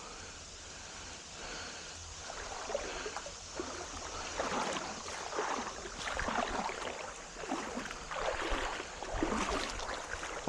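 Creek water running, with irregular sloshing swishes of water about once a second that grow louder a few seconds in.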